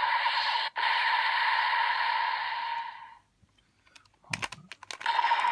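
Electronic sound effect from a Kamen Rider Revice toy belt and Vistamp playing through its small speaker, holding one steady high tone and cutting off about three seconds in. A few sharp plastic clicks follow as the stamp is handled, then the sound starts again near the end.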